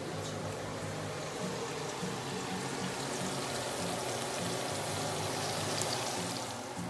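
Oil sizzling in a pot of whole spices and green chilli, a steady hiss that grows a little louder near the end, over low background tones.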